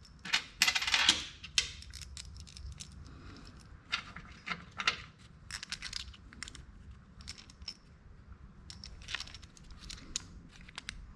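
Metal sockets clinking and clattering against each other as they are picked through and fitted together by hand, in irregular bursts of small sharp clicks.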